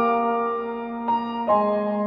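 Background piano music: slow, soft notes, with a new chord struck about one and a half seconds in and left to ring.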